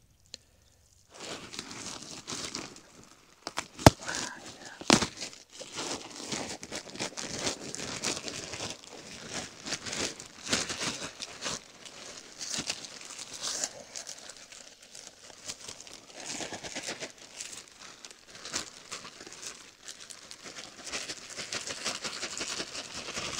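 Wood-chip mulch being scooped and spread on soil: an irregular crackling and rustling, with a sharp knock about four seconds in.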